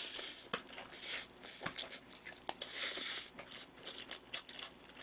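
A man eating noodles close to the microphone: short slurps of noodles and wet chewing with many small mouth clicks and smacks.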